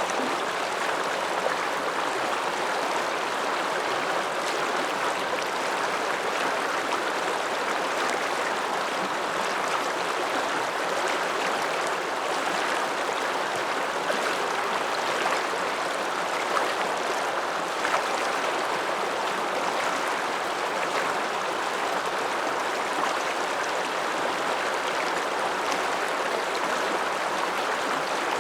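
Alpine mountain river flowing, a steady rushing of water with no break or change.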